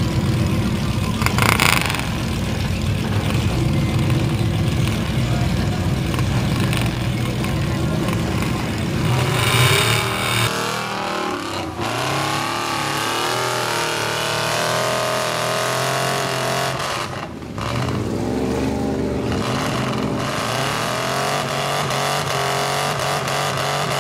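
Big-tire mud truck's engine working hard, first as a dense loud drone, then from about ten seconds in revving up and down repeatedly as the throttle is worked.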